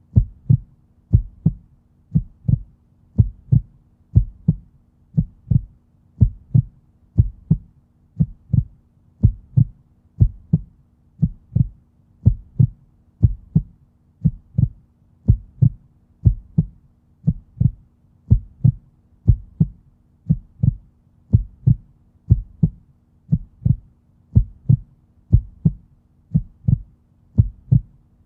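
Heartbeat sound: a steady, slow lub-dub, each beat a pair of low thumps, about one beat a second.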